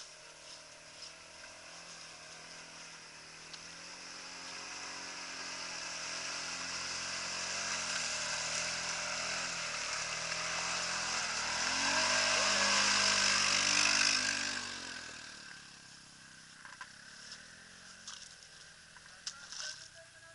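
Quad bike (ATV) engines running as the quads come up a muddy lane, growing louder to pass close by about twelve to fourteen seconds in with a slight drop in pitch, then fading away. A few faint clicks follow near the end.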